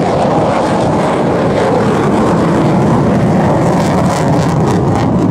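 Loud, steady running noise of a jet engine, with no distinct events.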